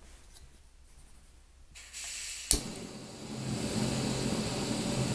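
Jetboil Zip camping stove being lit: gas starts hissing from the burner about two seconds in, a sharp pop as it ignites half a second later, then the lit burner runs with a steady hiss.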